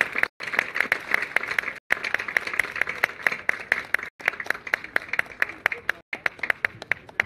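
Applause from a small crowd, many hands clapping, thinning out and stopping near the end. The sound drops out to silence for a split second a few times.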